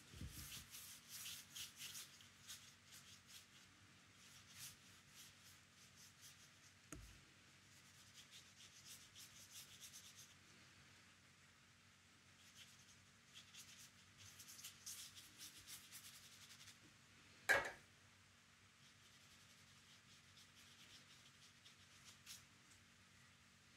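Flat paintbrush brushed across watercolour paper in quick, faint, scratchy strokes that come in spells. About two-thirds of the way through there is one short sharp knock, the loudest sound here.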